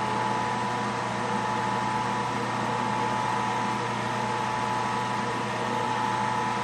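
Wood lathe running at a steady speed, spinning a resin pen blank on its mandrel: a steady motor hum with a constant whine.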